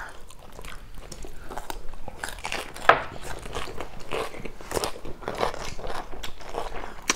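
Close-up crunching and chewing of raw cucumber and lettuce, a run of irregular crisp bites, the loudest about three seconds in.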